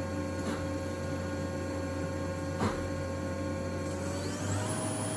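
Steady low electrical hum with a steady tone above it, two faint clicks, and a faint high sweep that rises near the end.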